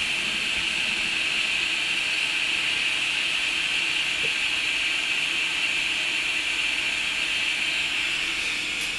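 Steady hiss of a stream of blowing air from bench equipment at a microsoldering station, even and unbroken, with a strong high-pitched band in it.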